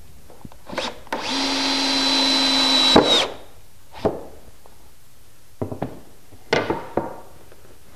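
Cordless drill-driver driving a screw through the sled base into the plywood fence: a steady whine for about two seconds, building slightly, then stopping abruptly. A few light knocks follow later on.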